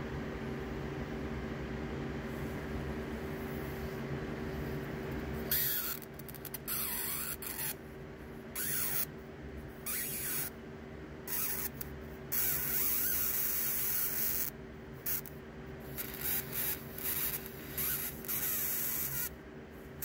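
High-voltage arc from a flyback transformer's output drawn between two wire ends, hissing in irregular stretches that start and stop abruptly from about five seconds in, over a steady hum.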